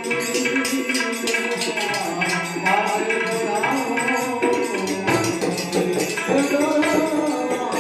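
Devotional bhajan music: a melodic voice or instrument line over a steady beat of jingling hand percussion.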